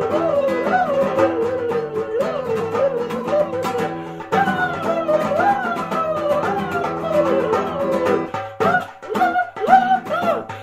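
Music with plucked guitar under a wavering lead melody that slides up and down in pitch; the melody drops out briefly a little over four seconds in.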